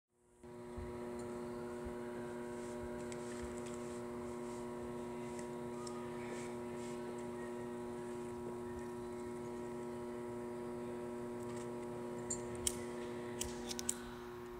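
Steady electrical mains hum made of several even tones. Near the end come a few sharp clicks as a cigarette lighter is struck.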